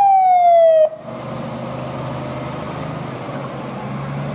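Fire engine siren sounding a slow falling wail, cut off abruptly about a second in, followed by the truck's engine running steadily as it rolls past.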